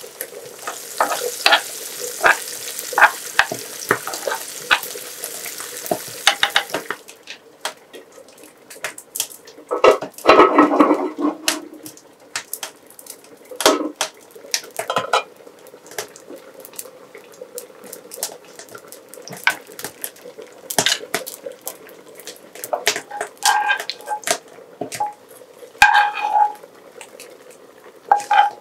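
Cooking at a stove: spoons stirring, scraping and clinking against metal pots and a cast-iron frying pan, in scattered knocks and scrapes. For the first seven seconds a steady sizzling hiss runs under the clicks, cutting off suddenly.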